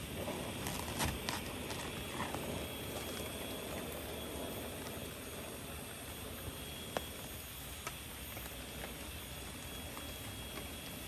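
Steady outdoor background hiss with a rustle of a large leaf being handled about a second in, and a few light clicks later on.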